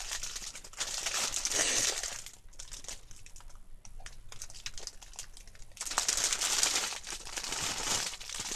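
Plastic bags crinkling and rustling as things in them are rummaged through, in two busy spells with a quieter stretch of scattered small crackles in between.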